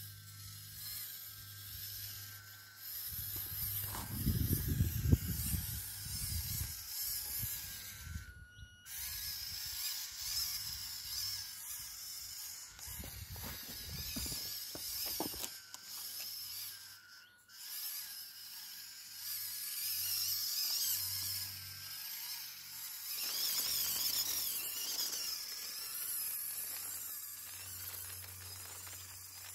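A 3D-printed 1/16-scale RC tractor's small electric motor and gearbox running with a thin, wavering whine. Bursts of low rumble come about four seconds in and again around thirteen to fifteen seconds.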